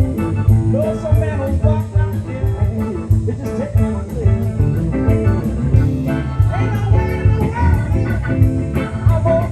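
Live blues-rock band of drums, bass, electric guitars, sax and keys playing at full volume. The drums keep a steady beat under a bending, sliding lead line.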